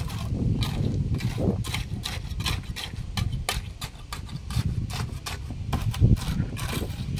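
Construction work: irregular sharp knocks and clicks, a few a second, over a steady low rumble.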